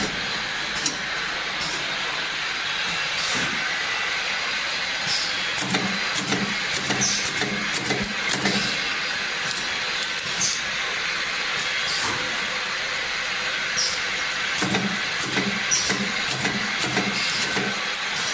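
Automatic cough syrup bottle filling line running: a steady mechanical hiss, with sharp clicks every one to three seconds.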